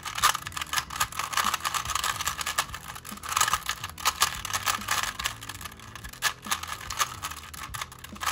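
A current Rubik's-branded 3x3 cube, tiled and non-magnetic, being scrambled fast: a rapid, irregular run of plastic clacks and rattles from its face turns. The cube is a loud one.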